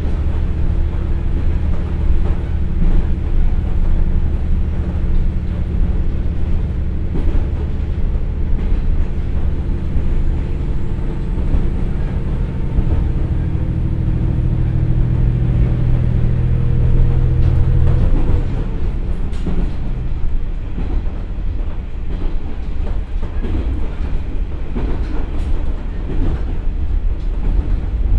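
Komatsu diesel engine of a KiHa 47 railcar pulling under power, heard from inside the passenger car, its note climbing slowly as the train gathers speed. About eighteen seconds in the engine note cuts away suddenly as power is shut off, leaving wheel and rail noise with rail-joint clicks as the railcar coasts.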